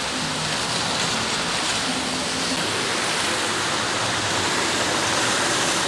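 Steady rush of floodwater running through a flooded street, carrying floating garbage toward storm drains clogged with trash.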